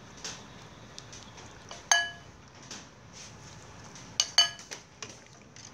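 Metal ladle clinking against an aluminium pot and a ceramic bowl as rice gruel is ladled out: one ringing clink about two seconds in, then two quick, louder ones a little past four seconds, with softer taps between.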